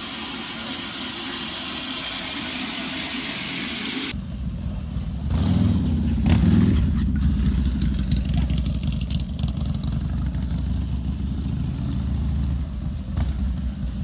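Tap water running steadily into a sink, cut off sharply about four seconds in. A motorcycle engine then runs with a low hum, louder for a moment about six seconds in before settling steady.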